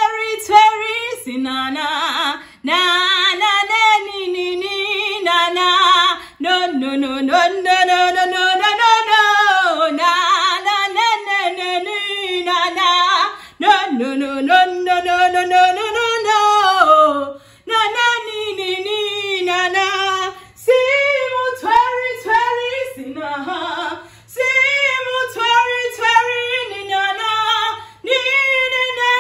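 A woman singing unaccompanied in phrases of a few seconds, holding and bending long notes, with short breaks between phrases.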